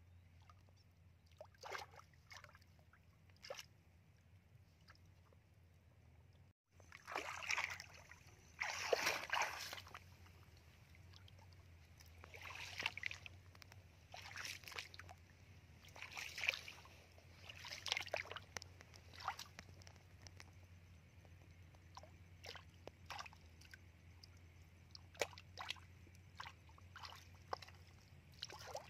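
Shallow muddy water splashing and sloshing in short, irregular bursts as a woven bamboo plunge-basket fish trap is pushed into the mud and hands and feet stir the water around it.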